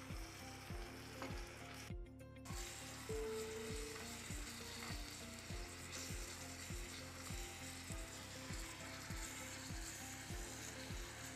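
Chopped onions sizzling in hot oil in a miniature clay pot, stirred with a small spoon. The sizzle drops out briefly about two seconds in.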